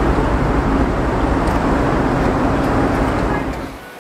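Loud steady engine rumble with a constant low hum, dropping away sharply about three and a half seconds in.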